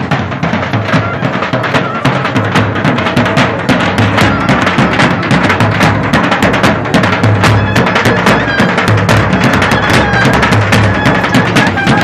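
Bulgarian folk street band playing loudly: large double-headed bass drums beaten with sticks in a fast, driving rhythm, with clarinets playing the melody.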